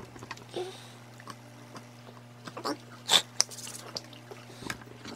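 Dogs chewing chicken tender treats: scattered small crunches and clicks of teeth on the treats, with a sharper snap about three seconds in.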